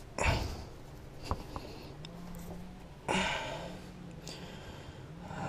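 A man sniffing sharply twice, about three seconds apart, with a small click between them.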